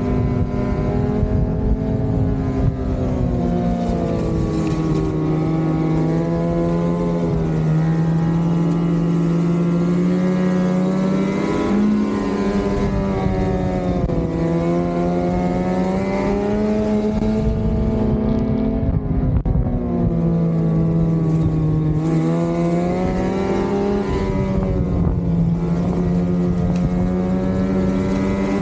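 2026 Lynx Shredder RE 850 Turbo snowmobile's turbocharged two-stroke engine, breathing through a Jaws trail muffler, running under way on the trail. Its pitch rises and falls with the throttle, easing off and picking back up several times, over low wind rumble on the microphone.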